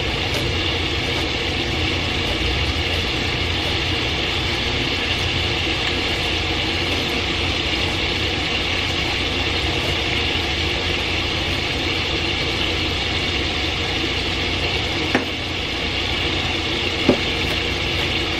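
Garlic being minced with a chef's knife on a wooden cutting board: light knife taps over a steady hum, with two sharper knocks near the end.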